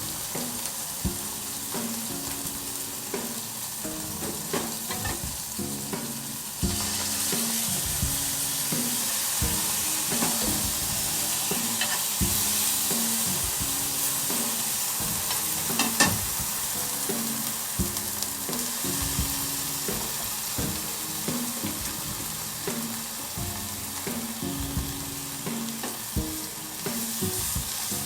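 Gyoza-filled aburaage (fried tofu pouches) frying in oil in a pan: a steady sizzle that gets louder about seven seconds in, with scattered sharp taps of a utensil against the pan.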